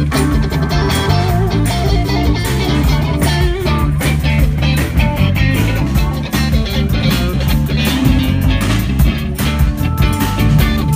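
Live rock band playing with amplified electric guitar, bass guitar and drum kit, with a steady beat.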